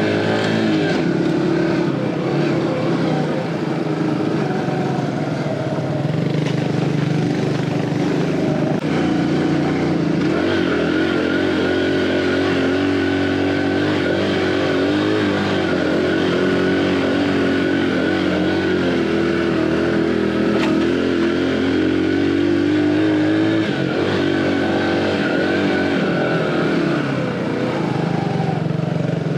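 A 115cc single-cylinder four-stroke underbone motorcycle engine (Aveta Ranger Cub Cross 115) running under way, its note rising and falling with the throttle several times.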